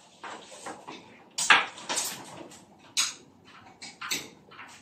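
Irregular clicks, knocks and rustling of hands handling cables and small objects on a TV stand, most likely while a USB plug is pushed in. The loudest knock is about a second and a half in.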